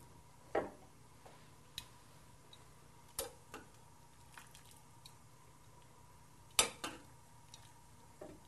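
A few quiet, scattered clicks and taps as wet boiled spinach is lifted from the pot with metal tongs and set down to drain, with water dripping off it. The loudest taps come shortly after the start and about two-thirds of the way through.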